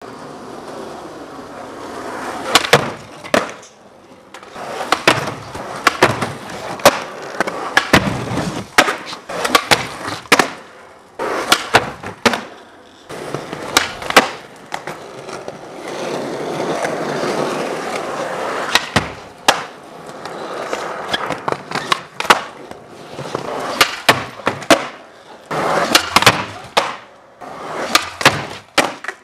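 Skateboard wheels rolling on a smooth warehouse floor, broken by many sharp pops, board clacks and landings as tricks are done.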